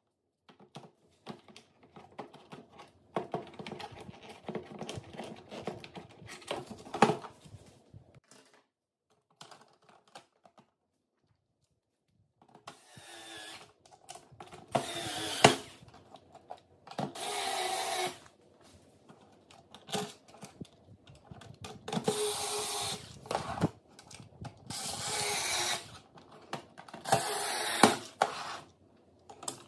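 Plastic parts of a robot vacuum being handled and clicked together, then a small cordless electric screwdriver whirring in several short bursts of about a second each as it drives the bottom cover's screws back in.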